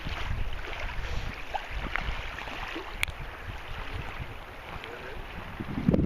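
Wind buffeting the microphone outdoors, a fluctuating low rumble, with one sharp click about halfway through.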